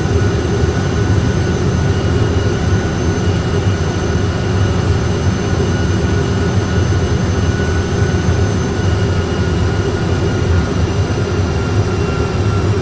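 Steady cockpit noise of an Airbus A320 flight simulator on final approach: a continuous low rumble of simulated engine and airflow noise, with a few faint steady high-pitched tones above it.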